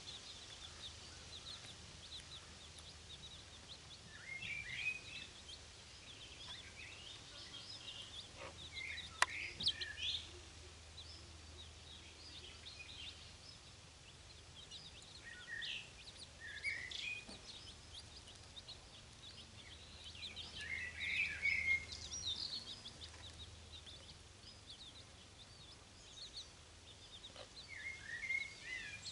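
Young chicks peeping: a steady scatter of short, high cheeps with louder clusters every few seconds. A single sharp click about nine seconds in.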